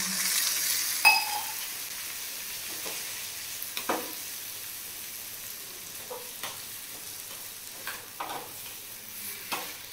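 Goat intestine pieces with onion sizzling in a metal kadai over a gas flame, while a steel spoon stirs, scrapes and clinks against the pan. The sizzle is strongest at the start, just after a little water went into the hot pan because the food was sticking to the bottom. About a second in there is one sharp, ringing clink of spoon on pan.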